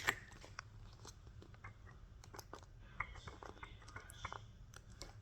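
Faint handling noise of a small fidget toy: scattered light clicks and crinkles, a little busier about three seconds in.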